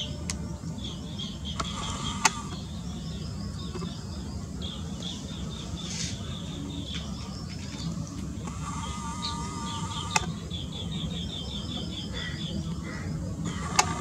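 Green bee-eaters calling: repeated rapid trills of high chirps, one series after another, over a steady low rumble. A few sharp clicks stand out as the loudest sounds, one a couple of seconds in, one near the middle and one near the end.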